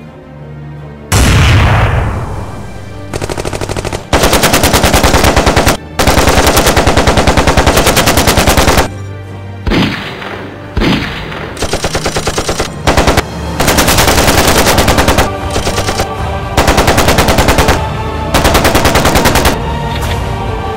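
Dubbed automatic gunfire sound effects: a heavy boom about a second in, then repeated long, rapid bursts of machine-gun fire with short gaps between them.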